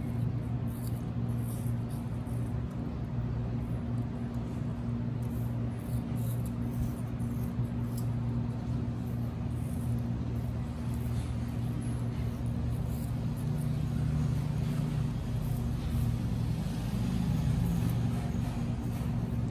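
A steady low hum, unchanging throughout, with faint small clicks scattered above it.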